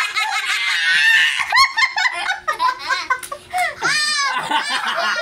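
Several people laughing hard together, with a high-pitched shriek of laughter about four seconds in.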